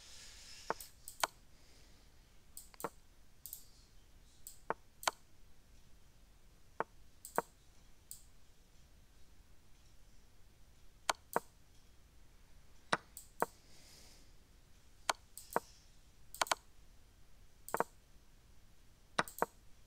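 Computer mouse button clicks as chess moves are made on an online board: short, sharp clicks at an irregular pace, many in quick pairs.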